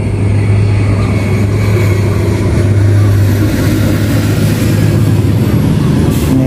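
Steady low drone of a running engine.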